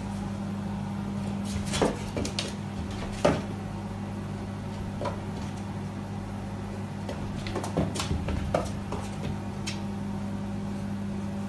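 A cat batting at a mirror: sharp taps and knocks in two short clusters, about two seconds in and again about eight seconds in, over a steady low hum.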